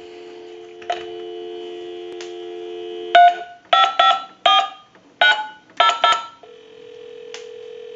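Payphone line dial tone, a steady two-note hum heard through a pickup amplifier, then seven touch-tone beeps as a number is keyed on the payphone's keypad. A steady ringback tone follows near the end while the call connects.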